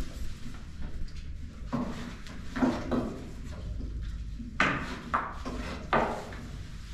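Thin wooden rolling pins clacking and knocking on round wooden boards as tiri flatbread dough is rolled out, in irregular short clatters, the loudest three close together in the second half.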